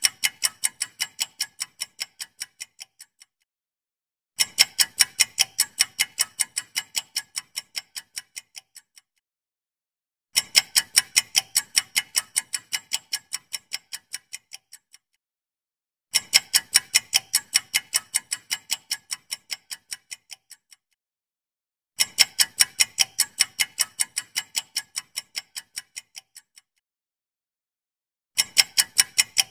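Countdown-timer ticking sound effect: runs of fast, crisp ticks, about four to five a second, each run fading away over about four seconds. After a second or so of silence the next run starts, about every six seconds.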